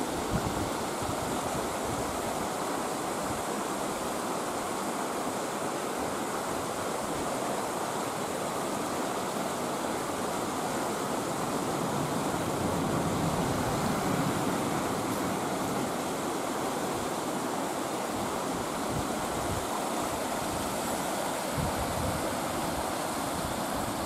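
Steady rush of a fast-flowing mountain stream running over rocks and gravel.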